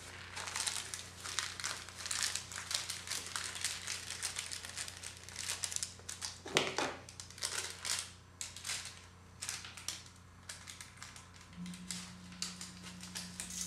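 Paper towel and plastic meat packaging crinkling and rustling in the hands, a run of irregular crackles, over a steady low hum.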